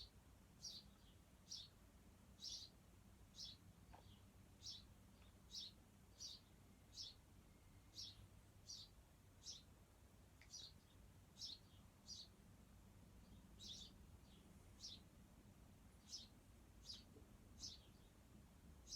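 Small birds living under the eaves chirping over and over, short high chirps about once a second, over a faint low hum.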